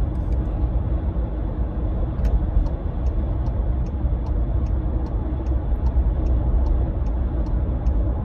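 Car driving along, its steady road and engine rumble heard inside the cabin. From about two seconds in, the turn indicator ticks evenly at about two or three clicks a second.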